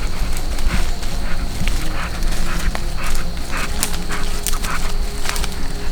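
A pit bull's short, irregular breaths and snuffles over a steady low rumble.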